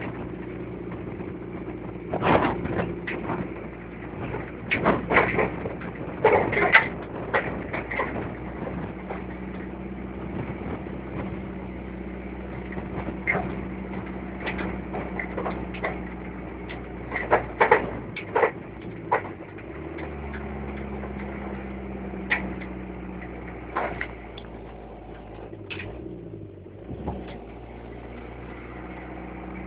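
A vehicle's engine running steadily while it drives, with many sharp knocks and rattles of the vehicle jolting along; the engine note shifts about twenty seconds in.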